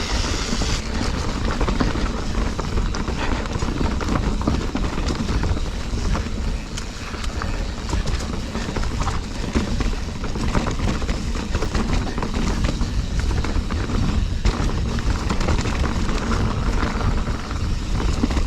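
Full-suspension mountain bike clattering over a rocky trail at speed: tyres hitting rocks, chain and frame rattling in quick irregular knocks, with wind rumbling on the action-camera microphone.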